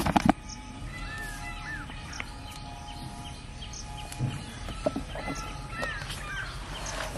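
Birds calling in the open countryside: repeated short chirps and arching whistled calls throughout. A brief loud rustling clatter comes right at the start.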